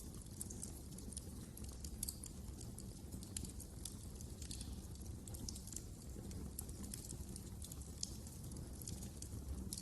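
Wood fire crackling: irregular small snaps and pops over a low steady rumble of flame.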